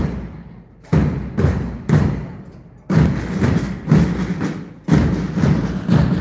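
Marching band drums beating a steady pattern: three strikes about half a second apart, a short pause, then three more, repeating.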